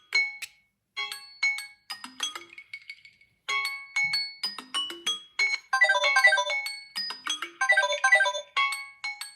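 A smartphone's melodic alert tone: a phrase of short, bright, ringing notes that repeats with short pauses and grows fuller and denser in the second half.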